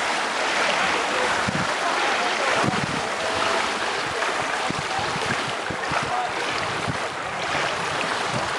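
Wind buffeting the microphone in uneven low gusts over a steady hiss of outdoor noise, with a few short faint calls.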